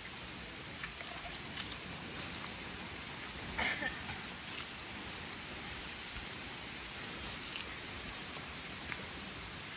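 Steady hissing ambience at a river pool, with a few faint splashes and knocks from swimmers in the water. The clearest comes about three and a half seconds in.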